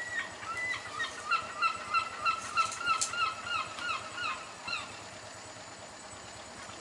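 A bird calling a run of about fourteen short honking notes, about three a second, fading out about five seconds in.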